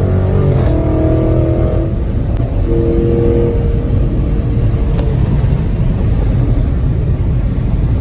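The 6.4-litre 392 HEMI V8 of a 2020 Dodge Charger Scat Pack running under way, heard from inside the car: the engine note is clear for the first two seconds and again briefly around three seconds in, then sinks into a steady rumble and rush of road noise.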